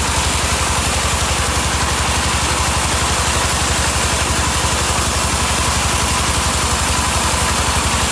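Sawmill machinery running steadily, with a fast, even low throb and no change in pace.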